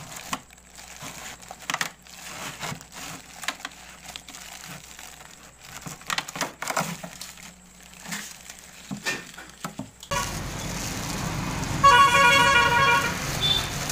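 Black plastic bags crinkling and rustling as frozen chickens are handled in a freezer. About ten seconds in the sound cuts to steady street noise, and a vehicle horn honks for about a second, the loudest sound here.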